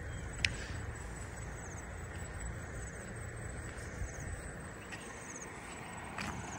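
Open-air rural ambience: a steady low rumble, faint high chirps now and then, and a couple of soft clicks, about half a second in and near the end.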